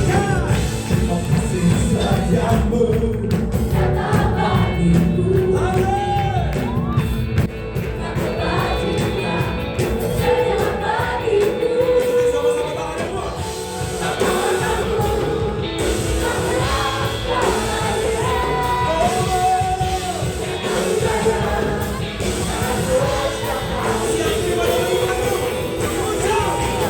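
Praise and worship music: a band playing with voices singing a melody.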